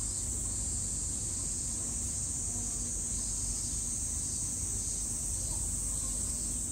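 Cicadas singing in a steady, unbroken high hiss, over a low background rumble.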